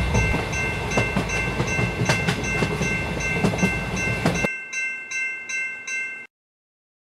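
Train passing a railway crossing: a low rumble and rhythmic wheel clacks under the steady ringing of a Japanese crossing alarm bell. The train noise stops suddenly about four and a half seconds in, leaving the bell pulsing about three times a second until it cuts off near the end.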